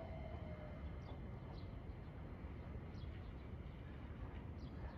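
Faint outdoor ambience after a train has passed: short, high, falling bird chirps every second or so over a low steady rumble, while a fading falling whine dies away in the first second.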